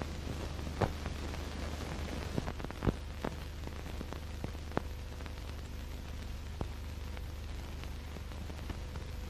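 Steady hiss and low hum of an old optical film soundtrack, with scattered crackles and a few sharper pops.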